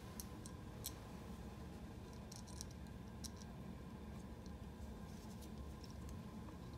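Faint scattered ticks and scratches of gloved hands handling a print engine and its plastic ink tubing, over a steady low room hum.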